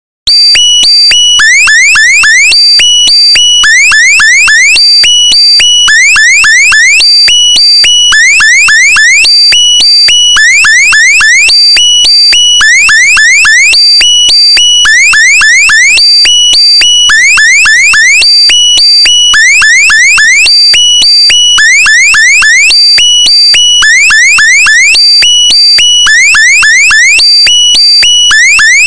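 Very loud electronic alarm tone that starts abruptly just after the beginning: clusters of quick rising chirps over steady high beeps, the same cycle repeating about every second and a half.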